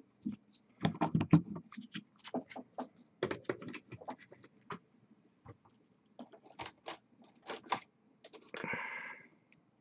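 Irregular small clicks and taps from hands handling miniature-painting supplies: paint dropper bottles and brushes on the desk. A brief rustling scrape comes near the end.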